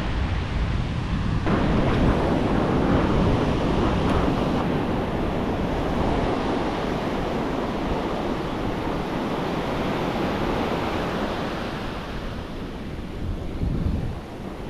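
Ocean surf breaking, with foamy wash running up the sand, and wind rumbling on the microphone. The wash swells suddenly about a second and a half in and eases off near the end.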